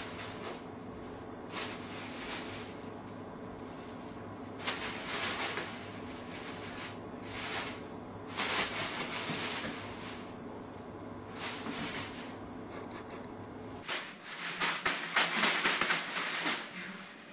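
Thin plastic bags rustling and crinkling in irregular bursts as cats move about tangled in them. About 14 seconds in, a louder, denser stretch of bag crinkling begins.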